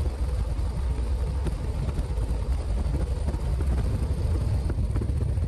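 Steady road and engine noise of a car driving, heard from inside the cabin: a continuous low rumble with a light hiss.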